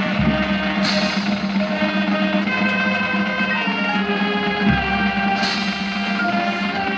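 High school marching band playing slow, held brass and wind chords. A deep drum hit comes twice, each followed shortly by a cymbal crash, about a second in and again about five seconds in.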